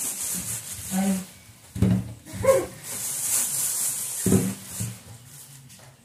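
Scraping and rubbing, with a few knocks about a second, two and four seconds in, and short bits of a voice.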